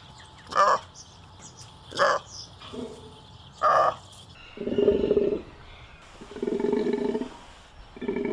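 Takin (Budorcas taxicolor) calling: three short, higher calls over the first four seconds, then three longer, lower calls of about a second each.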